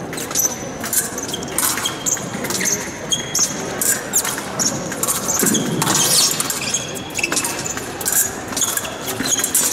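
Épée blades clicking and clashing over and over, several contacts leaving brief high metallic rings, mixed with fencers' shoes squeaking and stepping on the piste.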